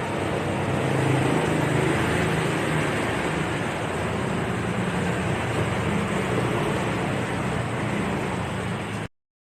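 Stainless steel electric kettle heating water toward the boil: a steady rushing, rumbling noise that cuts off suddenly near the end.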